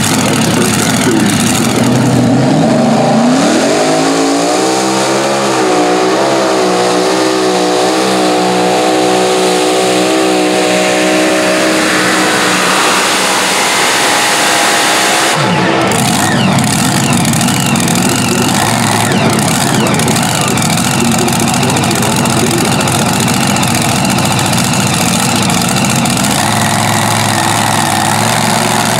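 Mini modified pulling tractors' supercharged V8 engines at full throttle under load. One engine revs up to a high, steady pitch a few seconds in. About halfway through the sound changes abruptly to another tractor's engine running flat out, rougher and noisier.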